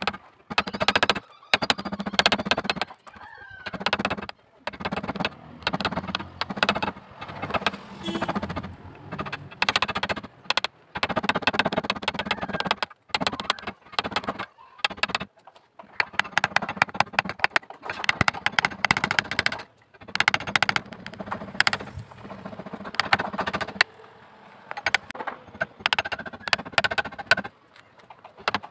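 Hand-held steel blade scraping and shaving a hardwood knife handle clamped in a vise: repeated rasping strokes, roughly one a second with short pauses, each with a rapid chatter as the edge takes off curled shavings.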